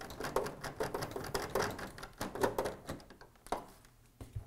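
Rapid small clicks and plastic rattles as a screw is backed out of a mini-split indoor unit's plastic wiring plate and the plate is worked loose by hand. The clicking thins out after about three seconds, with a single knock near the end.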